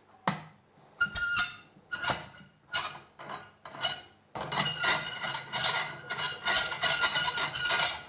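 Metal clinks and rattling from a bonsai bending jack being worked loose on the trunk: a few separate ringing clinks, then from about four seconds in a steady metallic rattling and grinding with a faint ringing tone.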